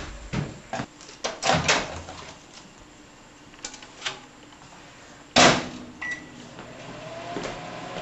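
GE microwave oven being loaded and started: a few clicks and knocks as the dinner tray goes in, then a loud slam of the door about five and a half seconds in. A short high beep follows, and the oven starts up with a steady hum.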